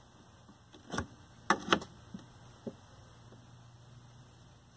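A few sharp clicks and knocks from handling the controls of a Beltron CRT tester-rejuvenator: one about a second in, a loud pair around a second and a half, then two lighter ones, over a steady low hum.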